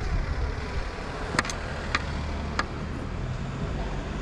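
Street traffic: a car's engine running with a steady low rumble. Three sharp clicks sound between about a second and a half and two and a half seconds in, roughly half a second apart.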